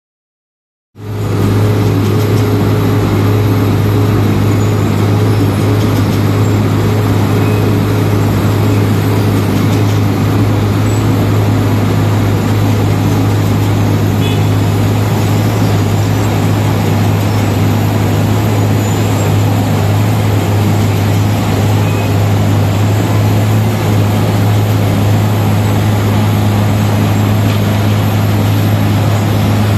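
Wirtgen W 150 CF cold milling machine working under load as its milling drum cuts asphalt: the diesel engine runs with a strong, steady low hum under a dense, even grinding noise. The sound starts abruptly about a second in.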